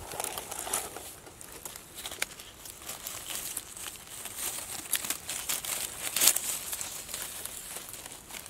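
Dry twigs and leaf litter crackling and rustling as a hand pushes through the forest-floor undergrowth to pick a mushroom: irregular small snaps and crinkles, the loudest about six seconds in.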